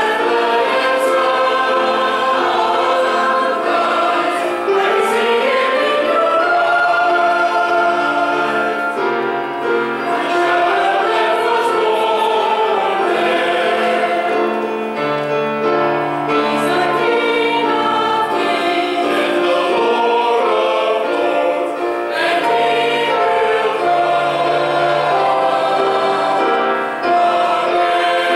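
Mixed church choir of men and women singing in harmony with instrumental accompaniment, holding long sustained chords.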